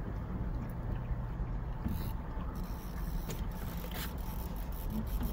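Steady low rumble of river water and wind around a drifting boat, with a few faint clicks about two and four seconds in.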